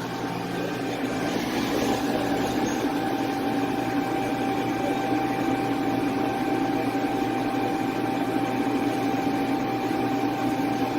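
A steady mechanical hum with a few high, steady whining tones, unchanging throughout.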